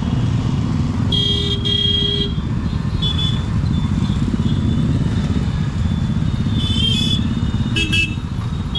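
Dense road traffic, mostly motorcycles and scooters with some cars and auto-rickshaws, engines running steadily as they pass. Two horn honks about a second in, and short horn beeps near the end.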